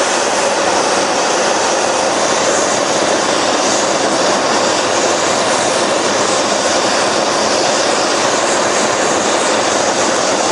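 Gas soldering torch flame burning with a steady rushing hiss as it melts metal in a crucible. It cuts off abruptly at the end.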